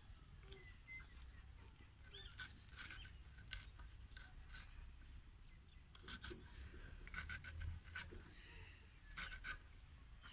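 Raw cabbage being sliced against an aruvamanai, a curved blade set in a wooden base on the floor: faint, short sharp cuts coming in small clusters every second or two.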